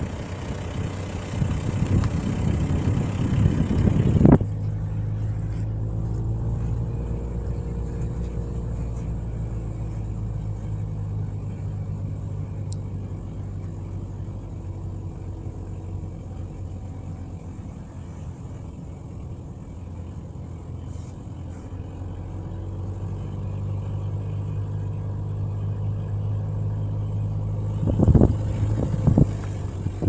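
A motor vehicle's engine running steadily at low revs, with a little wavering in pitch now and then. A loud rushing noise covers the first four seconds or so and cuts off abruptly, and a few sharp knocks come near the end.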